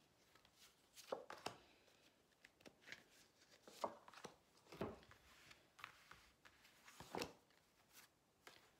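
Large cards being handled, dealt and laid on a table: scattered soft slaps and rustles, with sharper slaps about four, five and seven seconds in.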